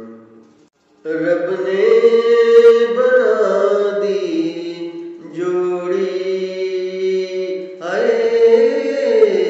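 A man singing unaccompanied in long drawn-out notes. The voice comes in about a second in and goes on in three long phrases with short breaks between them.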